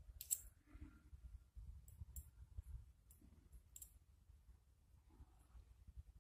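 Near silence broken by about five faint, sharp clicks in the first four seconds, over a low background rumble.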